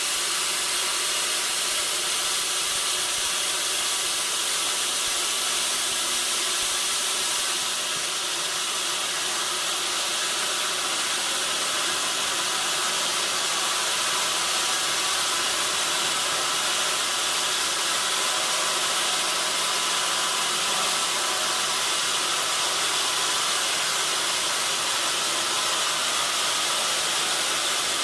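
Sawmill saw running with a steady hissing noise and faint steady tones underneath. The sound shifts slightly about eight seconds in.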